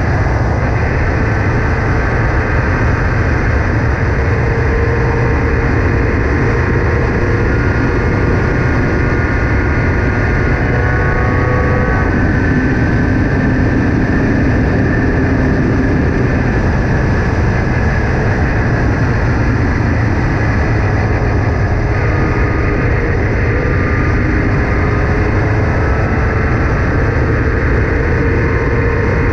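Formula Ford single-seater racing car engine at racing speed, its pitch climbing and dropping again and again through gear changes over a heavy, steady low rumble.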